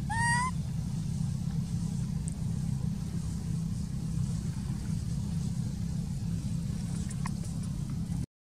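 A baby macaque gives one short rising squeal right at the start. A steady low rumble then runs on, and cuts off suddenly near the end.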